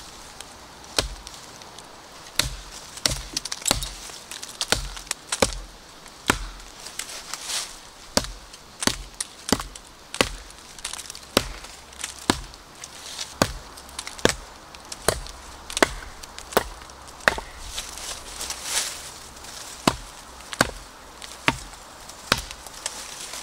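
Large Hemlock ARES survival knife chopping into a standing sapling trunk: a steady run of sharp blade-on-wood chops, roughly one to two a second, biting a notch into green wood.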